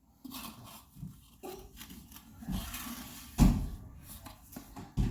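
Handling of plastic supplement tubs and a scoop: rustling and rattling, with a heavy thump about three and a half seconds in and another near the end as things are knocked or set down.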